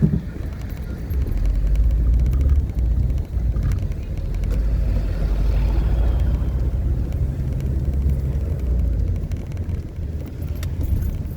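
Car engine and road noise heard from inside the moving car: a steady low rumble that swells about a second in and eases off near the end.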